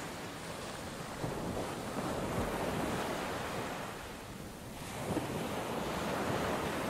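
Small waves breaking on a shingle beach, the surf swelling and washing back twice.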